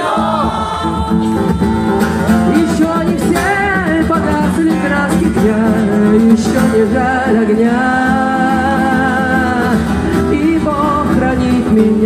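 Live song: a woman singing long held, wavering notes over a strummed acoustic guitar, amplified through the stage sound system.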